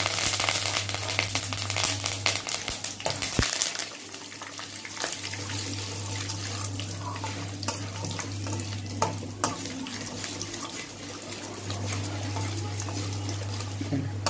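Curry leaves and tempering spices sizzling in hot oil in a stainless steel kadai. The sizzle is loudest for the first few seconds after the leaves go in, then settles to a quieter, steady sizzle. A steel ladle stirring the oil makes a few light clicks against the pan.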